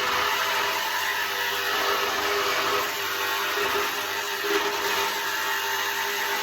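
Electric saw running steadily as its blade cuts a circle through the thin sheet steel of a 55-gallon barrel, following just outside a marked line for a flue collar hole.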